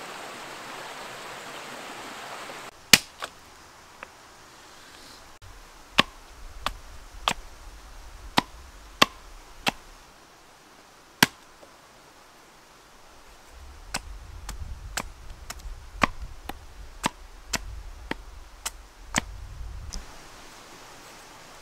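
About twenty sharp knocks of a blade chopping into a green branch on a birch stump, spaced irregularly, with a quick run of strikes about half a second apart near the end. A steady hiss fills the first couple of seconds and cuts off abruptly.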